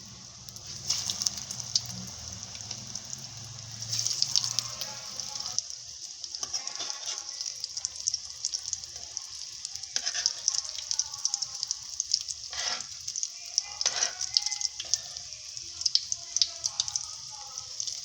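Nuggets frying in hot oil: a steady sizzle with dense crackling and a few sharper pops.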